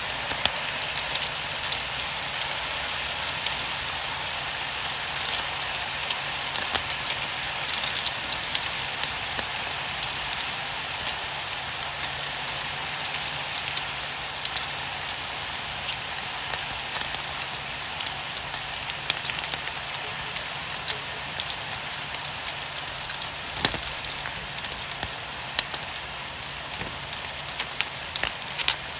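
Steady rain falling, a constant hiss with many sharp ticks of individual drops striking a hard surface.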